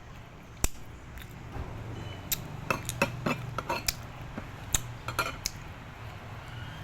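Metal utensils clinking and scraping against kitchen pots, pans or dishes: one sharp knock under a second in, then a quick run of clinks in the middle, over a steady low hum.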